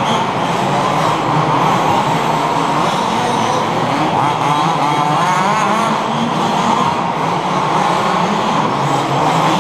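Several 1/5-scale HPI Baja RC cars racing on small two-stroke petrol engines, their overlapping pitches rising and falling as they rev on and off the throttle.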